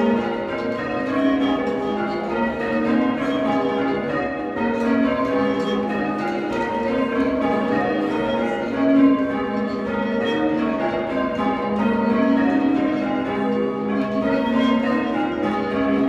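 A ring of six church bells, all cast in 1789 by Robert Dalton, being change-rung by hand-pulled ropes: a continuous, overlapping stream of bell strikes with a soft, pleasant tone.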